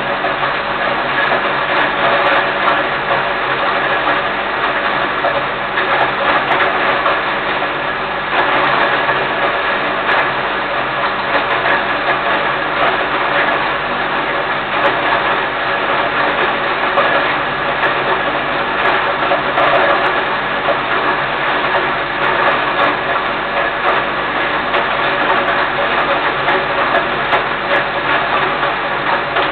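Electric grain hammer mill running under load, grinding grain for quail feed: a steady, loud whir with grain rattling through.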